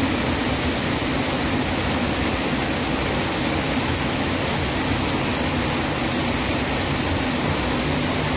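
Steady rush of water from a waterfall on the river, an even hiss with no breaks.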